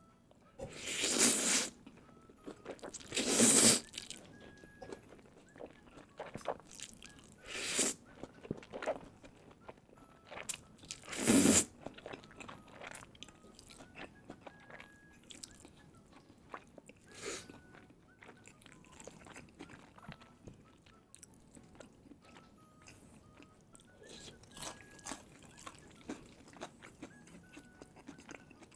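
Close-miked eating: four loud crunching bites into crispy fried chicken katsu in the first twelve seconds, then softer chewing with many small clicks.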